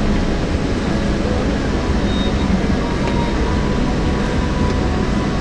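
Steady engine and road noise of a moving coach, with a low rumble and a faint steady hum.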